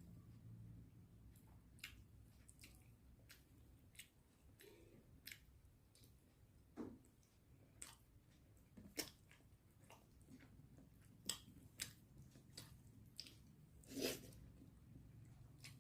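Faint, close-up sounds of a person eating chicken curry with poori: soft wet chewing and lip smacks, heard as scattered irregular clicks, a few of them louder toward the middle and near the end.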